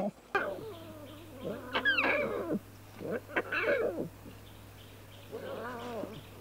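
Lion cubs calling: about four short, wavering calls that rise and fall in pitch, one after another, over a faint steady hum.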